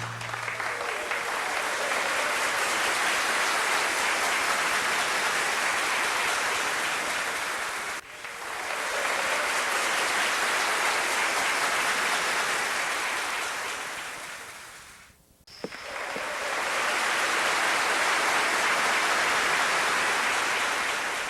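Large indoor audience applauding at a recital: dense, steady clapping that breaks off suddenly about eight seconds in and restarts at once, then fades away and swells up again about fifteen seconds in.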